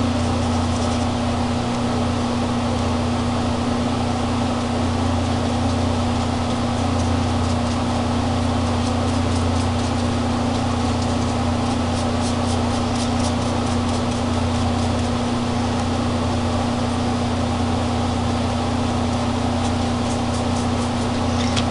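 Steady low mechanical hum with a constant low tone, like a room appliance running. Faint light ticks come about halfway through and again near the end.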